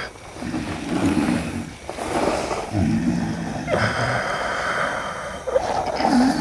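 A man's drawn-out growling, straining grunts and gasps, about three in a row with short breaks between them.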